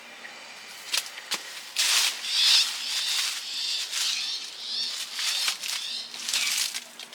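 Hand work on a broken angle grinder's parts: two sharp clicks about a second in, then a run of scratchy, rasping strokes.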